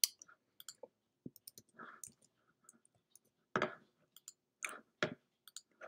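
Sparse soft clicks and taps of a computer mouse and keyboard in use, with a few short, somewhat louder sounds past the halfway point.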